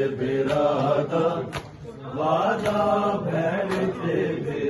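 Men's voices chanting a Punjabi noha together in long held lines, with a sharp slap about once a second keeping the beat: the chest-beating of matam.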